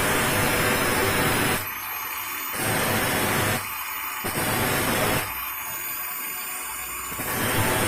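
Angle grinder filing the teeth of a hand saw: four harsh stretches of grinding, each a second or so long, dropping back between them to the faint high whine of the free-spinning disc as it lifts off the teeth.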